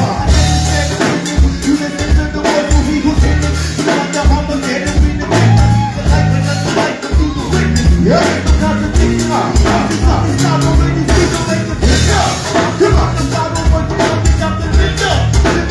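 Live go-go band playing: a bass line stepping between notes under dense, steady percussion, with some singing.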